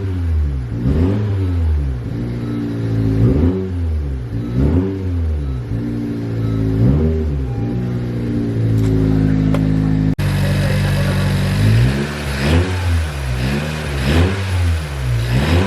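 Turbocharged four-cylinder engine of a 10th-generation Honda Civic being revved in repeated throttle blips, the pitch rising and falling about every second or so, with the factory bypass valve replaced by a block-off plate.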